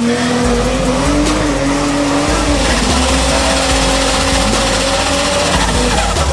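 Toyota Supra tuned to over 700 wheel horsepower doing a burnout: the engine is held at high, steady revs while the spinning rear tyres squeal.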